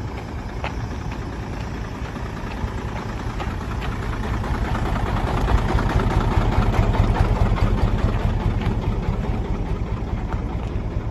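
Hino J08C inline-six diesel engine idling steadily, a low rumble that grows louder about halfway through as the microphone moves under the truck near the exhaust muffler.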